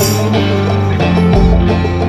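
Blues-folk rock music: plucked guitar strings over a steady low bass.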